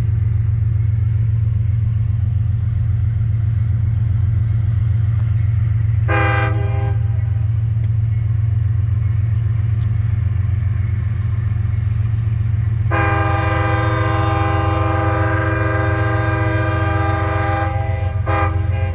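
CSX diesel locomotive passing close by, its engine a steady low rumble, sounding its horn: a short blast about six seconds in, a long blast of about five seconds later on, and a brief toot near the end.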